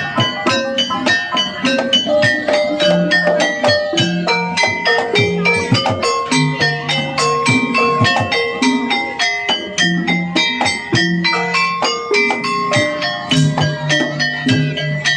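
Kuda kepang accompaniment music in the gamelan style: drums and ringing struck metal percussion playing a fast, dense, steady rhythm.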